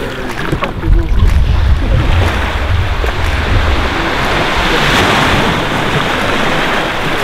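Small sea waves washing and water sloshing in the shallows, with wind buffeting the microphone in the first few seconds; the steady hiss of water swells about five seconds in.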